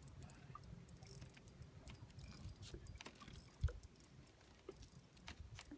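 Faint scattered clicks and small taps, with one dull thump about three and a half seconds in.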